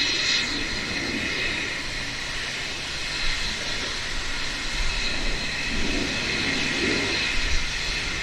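Small narrow-gauge steam tank locomotive with its cylinder drain cocks open, giving a steady, high steam hiss, with a few soft chuffs as it creeps forward.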